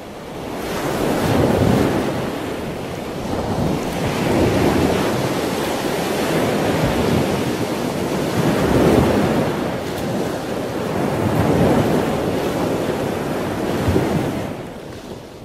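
Wind and sea rushing on a ship's open deck: a steady noise that swells and eases every few seconds and fades out near the end.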